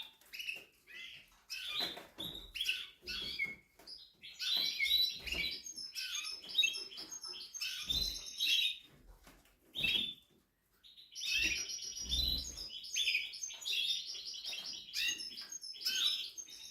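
Timbrado canary singing: long phrases of rapidly repeated notes and trills, broken by short pauses about four seconds in and about ten seconds in.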